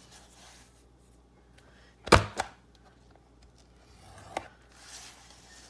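Envelope punch board's notching punch pressed down through paper, giving one sharp clack about two seconds in, then a smaller click and a faint paper rustle near the end.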